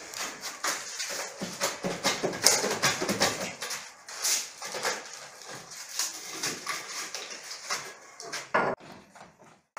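Irregular scraping, knocking and clattering as old wooden window-frame pieces are handled and pried out during demolition of a balcony window. There is a short squeal near the end.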